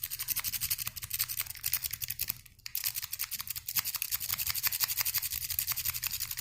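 Rapid scraping and clicking of a lock pick being raked back and forth over the wafers of a Sparrows wafer lock, many strokes a second, with a short pause about two and a half seconds in.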